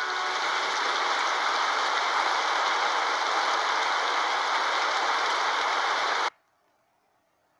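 Steady rain falling, an even hiss of drops that cuts off suddenly about six seconds in.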